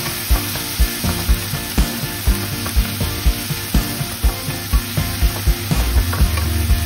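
Onions, garlic, ginger and tomatoes sizzling in hot oil in a wok while a wooden spatula stirs them, with background music keeping a steady beat of about two thumps a second.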